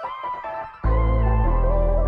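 Background music: a sustained melodic line with gliding notes, joined by a deep, steady bass just under a second in.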